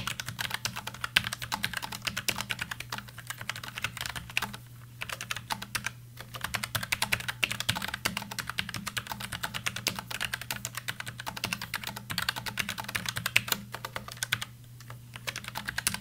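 Continuous fast typing on a full-size Logitech MX Mechanical keyboard with low-profile Kailh tactile brown switches and ABS keycaps: a dense run of muted, clicky keystrokes. The typing stops briefly about five, six and fifteen seconds in.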